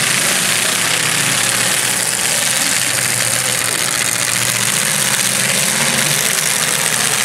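Demolition derby cars' engines running steadily, a dense continuous mechanical noise with no distinct crashes.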